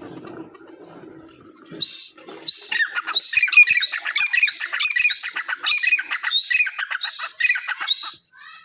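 A pair of grey francolins (Dakhni teetar) calling loudly together. A first sharp call comes about two seconds in, then a fast string of repeated shrill notes that stops just before the end.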